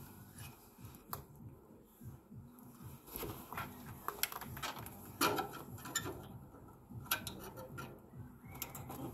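Scattered clicks and light knocks of tools and a cordless-tool battery pack being handled against the metal cabinet and fittings of a heat pump unit, over a low rumble.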